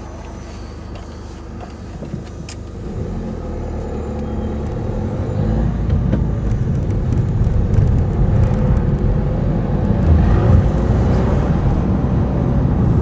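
A car pulling away and driving on, its engine and tyre rumble building steadily louder from a few seconds in.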